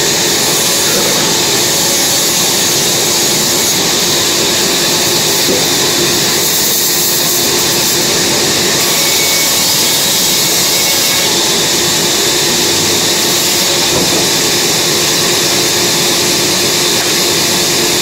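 Large vertical band saw running steadily: an even, loud machine noise with a constant hum and a strong high hiss.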